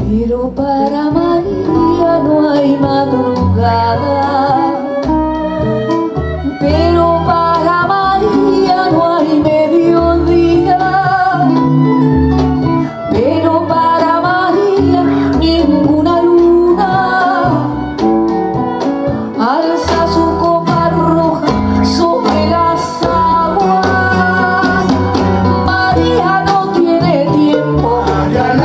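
A woman singing an Afro-Peruvian song live with her band: guitar and bass under her voice, with percussion hits growing busier about two-thirds of the way through.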